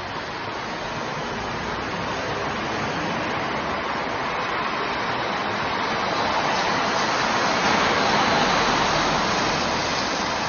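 Road traffic at a city intersection: a steady hiss of passing tyres and engines that swells to a peak about eight seconds in as a vehicle goes by, then eases.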